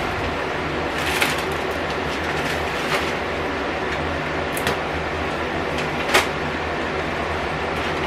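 Plastic and glass food containers clicking and knocking as they are lifted off refrigerator shelves, a few separate clinks with the loudest about six seconds in, over a steady mechanical hum.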